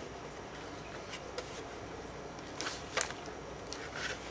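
Faint handling noise from an RC radio transmitter and its packaging: a few light clicks and short rustles, the sharpest click about three seconds in.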